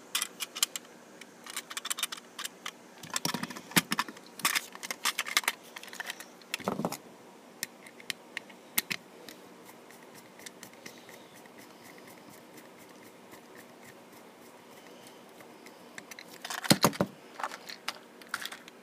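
Clicks and rattles of a battery-powered plastic Trackmaster toy steam engine being handled just after its battery is put in. There are quick bursts of clicks over the first several seconds and again near the end, with scattered single clicks between.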